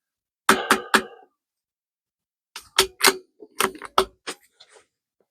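Sharp metallic clicks and clacks of a CZ 457 .22 rimfire bolt-action rifle's bolt being worked: three quick clicks, then a run of about seven more a couple of seconds later.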